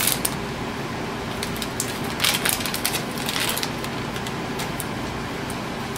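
Plastic wrapper crinkling as an inkjet ink cartridge is unwrapped by hand, with louder clusters of crackles about two and three and a half seconds in.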